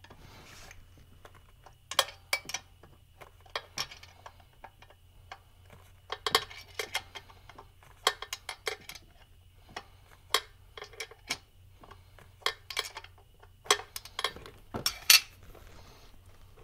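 A 13 mm wrench clinking against bolt heads and the engine's metal as the rear intake manifold bolts on a GM 3.6 V6 are worked loose: scattered, irregular metallic clicks and clinks, the loudest about fifteen seconds in.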